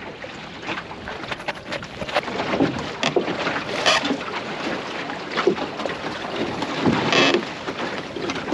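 Water splashing and slapping against the hull of a small open sailing dinghy under way close-hauled, with wind on the microphone. There are louder splashes about three, four and seven seconds in.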